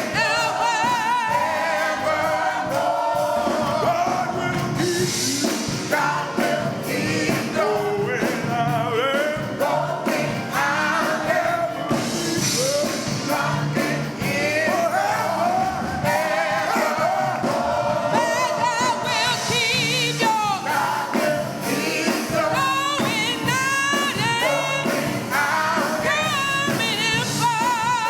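Gospel music: a choir and lead voice singing with wavering vibrato and long held, sliding notes over instrumental accompaniment.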